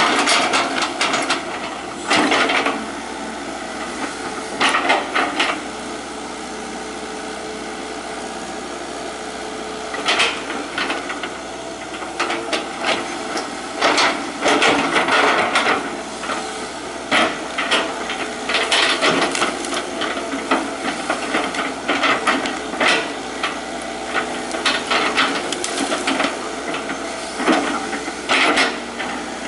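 Hitachi EX120 excavator at work: its diesel engine runs steadily while irregular bursts of clattering and cracking, each a second or so long, come from the machine digging earth and wood.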